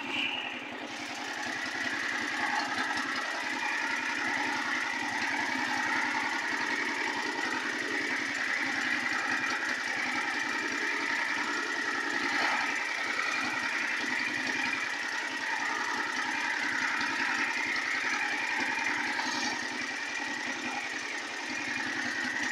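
Motorboat engine running steadily as the boat moves across open water.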